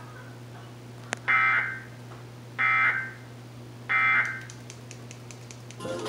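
Emergency Alert System SAME digital data bursts played through a TV speaker: three short, harsh buzzing bursts about 1.3 seconds apart, after a faint click, over a steady low hum.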